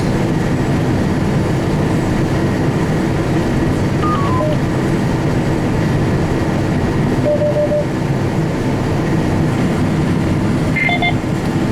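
Combine harvester running steadily while harvesting beans, a dense even drone. A few short faint tones sound over it, about four seconds in, near the middle and near the end.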